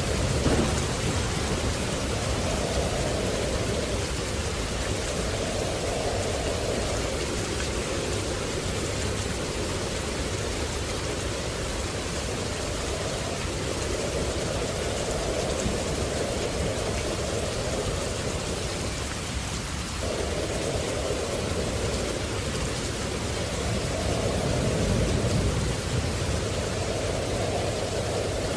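Steady rain with low rolls of thunder, one just after the start and another about 25 seconds in.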